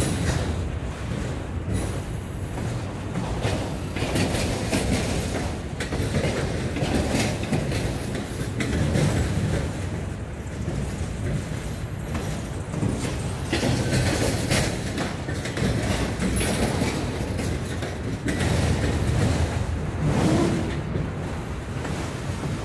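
Freight train rolling past: a steady rumble of railcars with the clack of steel wheels over rail joints.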